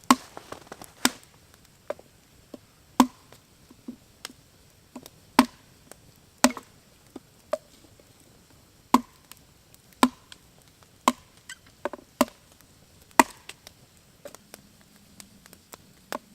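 Firewood being split for kindling: sharp wooden knocks at an uneven pace, about one every second or two, with lighter taps in between.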